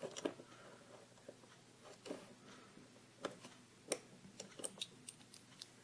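Faint, sharp metal clicks and ticks, irregularly spaced, as a small pick tool prods at the retaining C-clip on the back of a pin-tumbler lock cylinder; several come in a quick run about four and a half seconds in.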